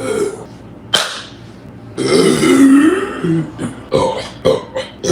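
A woman belching: one long, deep belch about two seconds in that lasts about a second and a half, its pitch dipping and then rising. A sharp click comes about a second in, and a few short, choppy sounds follow the belch.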